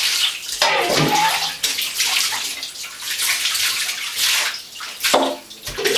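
Water being scooped and poured from a plastic cup over a small dog in a bathtub, splashing in uneven surges with short pauses between pours.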